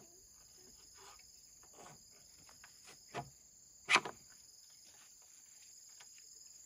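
Steady high-pitched chirring of insects, with a few short knocks and rustles from handling materials; the loudest, a sharp knock, comes about four seconds in.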